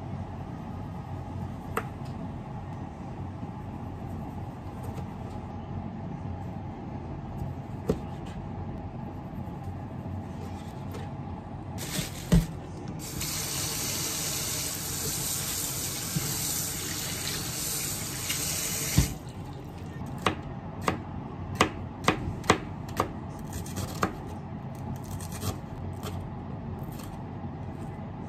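Kitchen tap running hard onto udon noodles in a stainless mesh strainer in the sink for about six seconds, then shutting off. After that comes a quick run of sharp knife taps on a cutting board as myoga is sliced.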